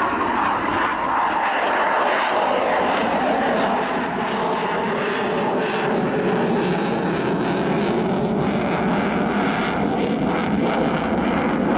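Eurofighter Typhoon fighter jet's twin Eurojet EJ200 turbofans, a loud, steady jet engine noise as the aircraft manoeuvres overhead with its afterburners lit.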